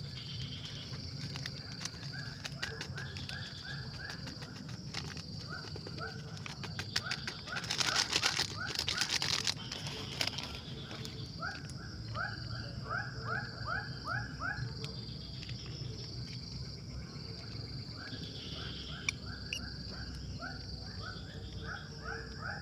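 Wild animal calls: runs of five or six short rising chirps, repeated every few seconds, over a steady pulsing insect buzz. A brief rattling burst of rapid clicks about eight seconds in is the loudest sound.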